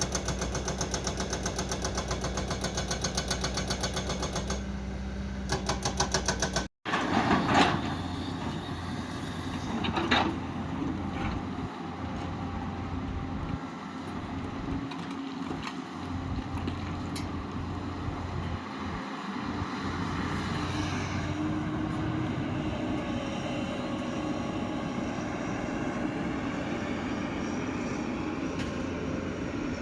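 Heavy construction excavator's diesel engine running under load, with a fast, even pulse for the first several seconds. After a brief break, the engine drones more steadily, with two loud knocks of rock or bucket about eight and ten seconds in.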